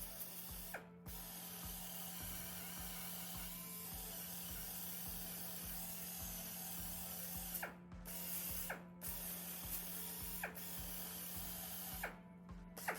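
A power tool runs on the van's steel panel, cutting out briefly a few times, over background music with a steady beat.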